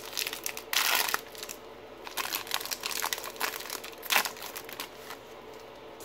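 Foil wrapper of a Topps Holiday baseball card pack being torn open and crinkled as the cards are pulled out: a run of crisp crackles, with a longer, louder burst about a second in and a sharp crackle just after four seconds.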